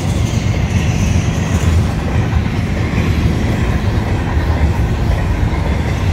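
Double-stack intermodal train's well cars passing at speed: a loud, steady noise of steel wheels rolling on the rails.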